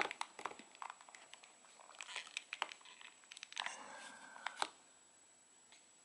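Faint, scattered clicks and scraping of hard plastic as fingers pry at a stuck button in the opened shell of an LG Magic Motion TV remote, with a longer rustling scrape about three and a half seconds in.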